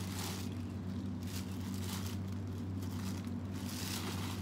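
Soft, irregular rustling and handling of a small nylon handbag over a steady low hum.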